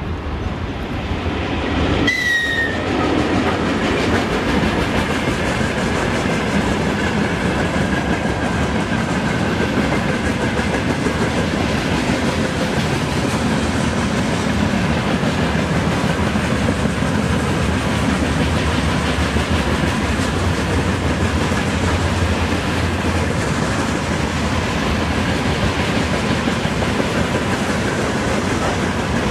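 A train passing close by, its wheels clattering steadily over the rails, building up over the first two seconds. About two seconds in, a brief high, slightly falling tone sounds.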